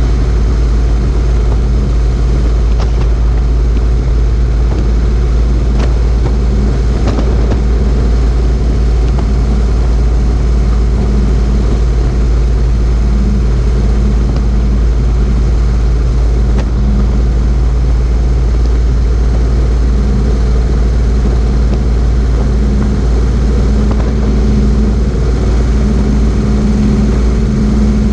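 Motorcycle engine running steadily at cruising speed, under a loud, steady rush of wind and road noise on a camera mounted low by the front fork.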